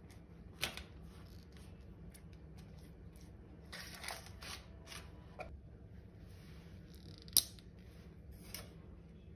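Soft rustling and dabbing as a silicone pastry brush spreads water over risen bread dough in a parchment-lined pot, the paper crinkling under it. Two sharp clicks, one about half a second in and a louder one near the end.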